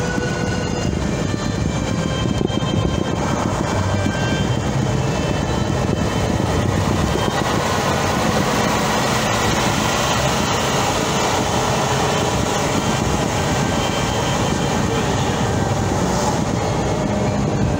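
Steady road noise of a car driving at speed along a highway: tyre and engine noise with no distinct events.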